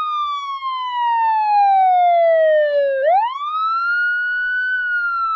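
Police siren wailing: one tone that falls slowly for about three seconds, then sweeps quickly back up and starts falling again.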